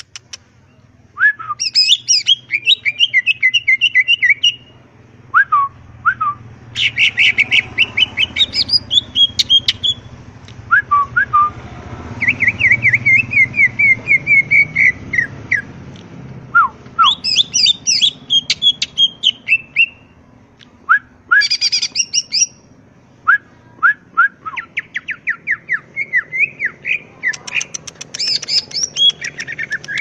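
Caged green leafbird (cucak ijo) singing in repeated bursts of rapid, high chirping trills and short whistled notes, with brief pauses between phrases.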